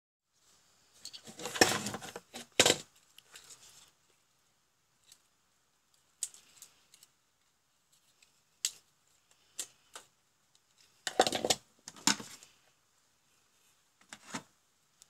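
Small metal-cased electronic parts being picked up, handled and set down on a hard workbench: a cluster of clattering knocks about two seconds in, scattered light clicks, and another pair of loud knocks a little past the middle.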